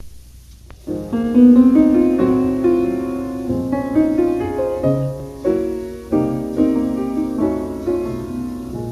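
Piano introduction to a slow ballad, played in sustained chords that change every second or so, starting about a second in after a faint opening with a single click.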